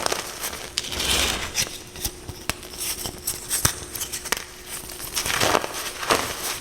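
Reformed gym chalk crushed and crumbling in a run of dry crunches and crackles, with louder crunches about a second in and again near the end.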